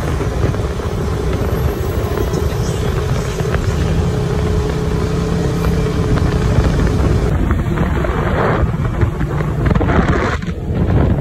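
Polaris RZR side-by-side's engine running steadily while driving, with a broader rush of noise toward the end.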